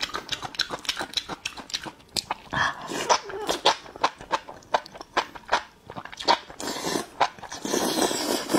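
Close-miked eating: wet chewing with many sharp crunches, from crisp pickled Laba garlic and chilli-sauced enoki mushrooms. The enoki are slurped in twice, about three seconds in and again near the end.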